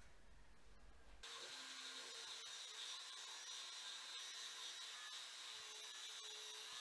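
Handheld power tool spinning a sanding disc against a bike's metal rim, stripping off its black coating. It starts about a second in and runs steadily as a high whine over a scratchy abrasive hiss.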